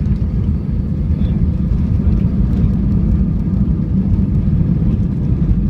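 Steady low rumble of an airliner's cabin during the landing, with engine and airflow noise and no distinct bangs or changes.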